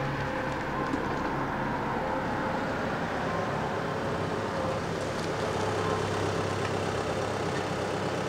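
A car driving in and pulling up: a steady rush of engine and tyre noise.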